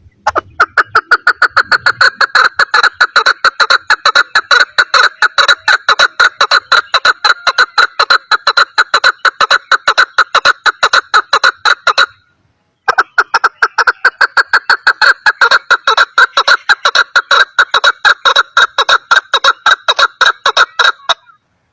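Chukar partridge calling a long, rapid series of clucking notes, about five a second, with a short break about twelve seconds in.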